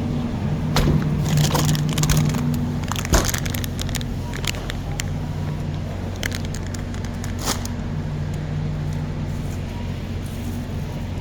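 Supermarket ambience in a refrigerated dairy aisle: a steady low hum with scattered crackles and clicks, busiest in the first few seconds and thinning out after about eight seconds.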